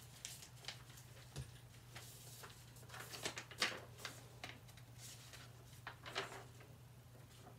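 Paper being handled: short, scattered rustles and crinkles, the loudest about halfway through, over a low steady hum.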